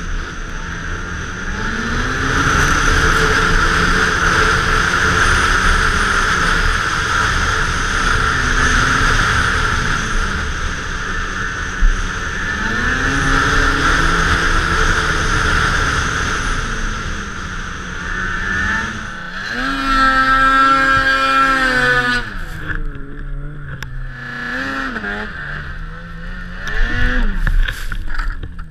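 Snowmobile engine running at riding speed, its pitch rising and falling with the throttle over a steady hiss of wind and track. About two-thirds of the way in it revs hard and eases off, and near the end it surges again as the sled ploughs into deep powder snow.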